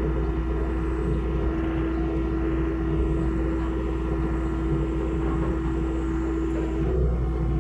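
Hitachi mini excavator's diesel engine running steadily under a low rumble, with a strong steady hum that wavers briefly near the end.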